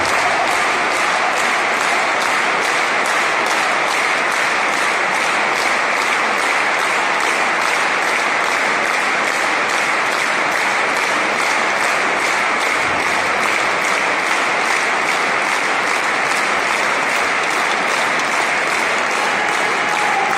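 A large crowd of more than two thousand spectators applauding steadily and loudly in a sports hall.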